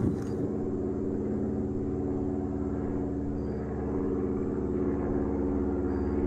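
An engine running steadily at an even speed, a low, constant hum.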